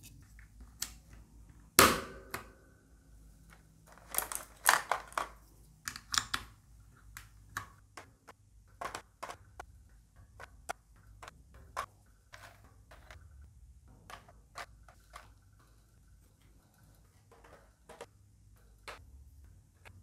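PBT keycaps being pressed onto Gateron Milky Brown switches on a mechanical keyboard, one by one: a string of irregular sharp plastic clicks and taps. The loudest is a knock with a short ring about two seconds in.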